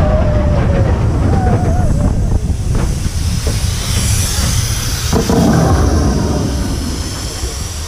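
Mine-train roller coaster cars rumbling and clattering along their track at speed, with a hiss of venting steam from a scenery effect rising about four seconds in.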